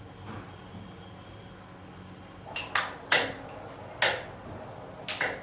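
Carrom striker and coins clacking on a carrom board: a run of about six sharp clicks, some in quick pairs, starting about halfway through. A faint steady hum runs underneath.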